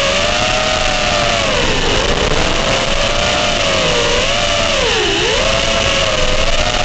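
FPV quadcopter's motors and propellers whining, the pitch rising and dipping with the throttle every second or so, over a steady hiss.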